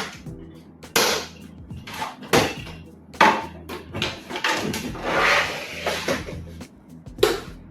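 Sharp knocks and clicks with a longer scraping stretch in the middle, from the plastic casing and parts of an all-in-one computer being handled during disassembly, over low background music.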